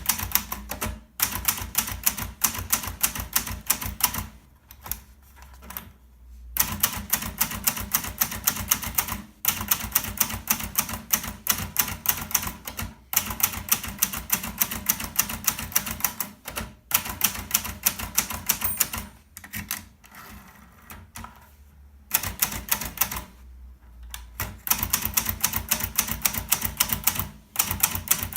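Hermes Baby portable typewriter being typed on: quick runs of key strikes, broken several times by pauses of a second or two.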